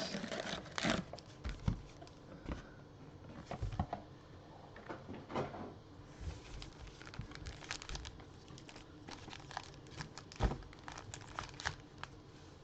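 Plastic wrapping on a box of trading cards crinkling and tearing as it is opened, with scattered light clicks and rustles of cardboard and packs being handled.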